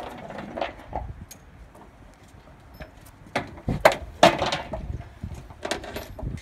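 Metal clinks and knocks of ratchet tie-down straps and their hooks being handled on an aluminium trailer, with a few sharp knocks bunched about three to four and a half seconds in.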